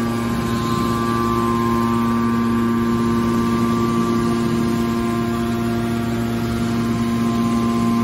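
Hydraulic power unit of a scrap copper wire baler running steadily: a constant hum with a steady higher whine above it.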